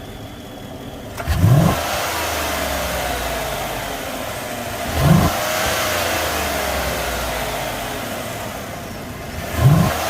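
Chevrolet Silverado V8 engine running, revved briefly three times about four seconds apart, each a quick rise in pitch that falls back to a steady idle.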